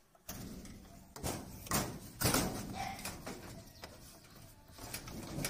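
A wooden stick held crosswise in a golden retriever's mouth knocking several times against the metal posts of a gate, separate knocks spaced about half a second to a second apart.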